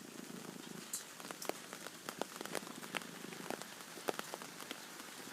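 Rain falling, with scattered single drops striking close by. A cat purrs low underneath it during the first second or so, then fades out.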